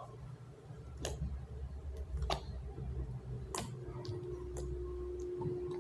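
Hard, stiff slime being kneaded and stretched by hand, giving sharp clicks and cracks about once a second as it breaks. A low steady hum runs underneath.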